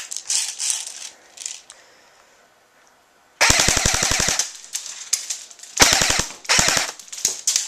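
Airsoft MP5 electric gun with a steel gearbox firing on full automatic: a rapid burst of about a second, then two short bursts and a single last shot, after a little handling rattle at the start.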